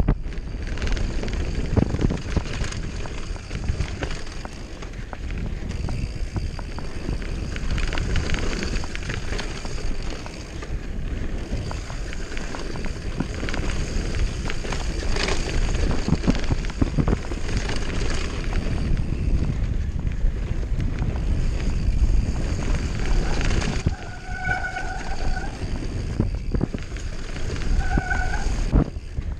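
Downhill mountain bike descending a dirt trail at speed: tyres rolling over packed dirt and roots, with constant knocking and rattling from the bike over bumps and wind on the microphone. Two short buzzing tones near the end.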